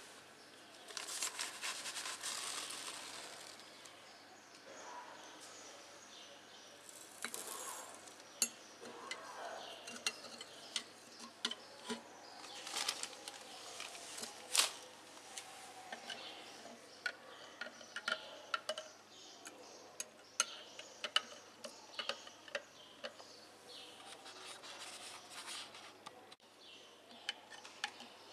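Metal cutlery clinking and tapping against a glass jar, with scattered light handling clicks, as a silver-plated spoon is set into the salt-water electrolysis jar and clipped in place.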